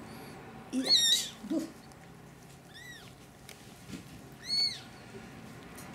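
Newborn ginger kitten mewing in thin, high, squeaky cries, three or four short calls a second or two apart, while its mother licks it clean.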